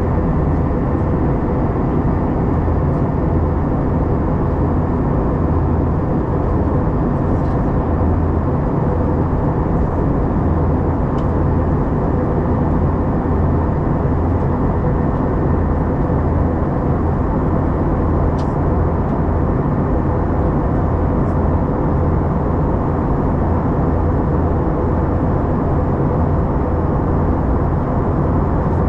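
Steady cabin noise of an Airbus A321-211 in flight, heard from a window seat beside the wing: the low, even drone of its CFM56 turbofan engines and rushing airflow, with a faint steady hum running through it.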